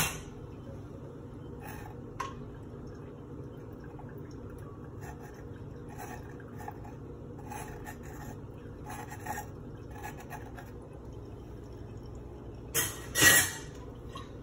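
Stout wort trickling and dripping from a funnel into a glass jug, with clicks and scrapes of a spatula working grains in a metal mesh strainer. There is a sharp click at the start and two louder bursts of clatter near the end.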